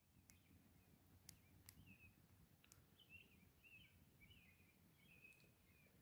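Near silence, with faint, high, short chirping calls repeating throughout and a few faint clicks.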